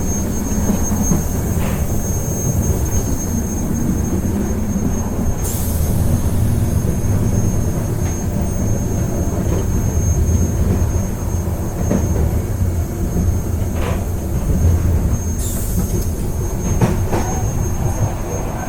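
Train ride heard from a passenger carriage: a steady low rumble of wheels on the track under a faint, steady high whine. There are a few light clicks and two short hissing bursts, about five and fifteen seconds in.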